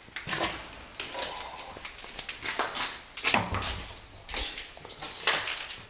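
Footsteps scuffing and crunching over a debris-strewn floor, an irregular run of short crunches and scrapes with no steady rhythm.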